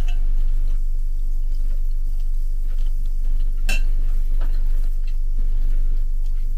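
Steady low hum, with a single sharp clink of a metal spoon against a ceramic soup bowl a little over halfway through and a few faint small clicks.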